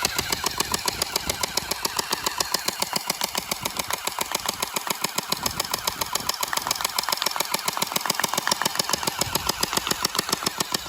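R99 splatter ball gel blaster firing on full auto: a fast, even, continuous rattle of shots from its motor-driven mechanism.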